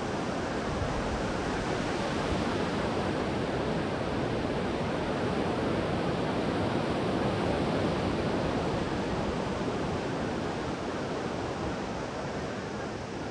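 Sea surf breaking and washing up on a sandy beach, a steady rushing that swells a little in the middle.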